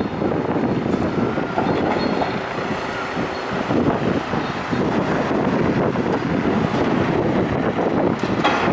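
Wind buffeting the microphone: a steady rushing noise that flickers unevenly in strength.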